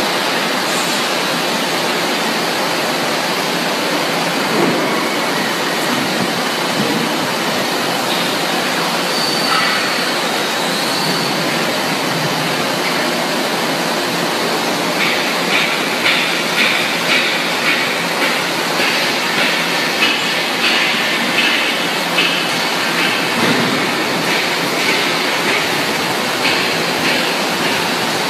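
Steady loud rushing noise of a breathing (plate-type) veneer dryer line at work. About halfway through, a rhythmic metallic clatter of about two knocks a second joins it.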